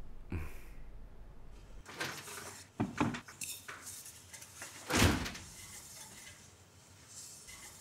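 A few light knocks and clatters, then a louder door thump about five seconds in.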